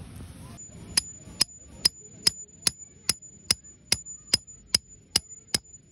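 A steady series of sharp knocks, about two and a half a second and speeding up slightly near the end, with a faint high whine behind them.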